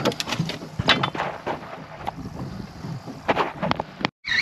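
Wind buffeting the microphone on a small boat at sea, with irregular knocks and slaps. The sound cuts off abruptly near the end.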